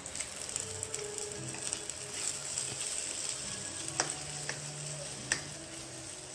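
Sliced onions and green chillies sizzling in hot oil in a nonstick pan while being stirred with a wooden spatula. The sizzle is a steady hiss, with two sharp clicks in the second half.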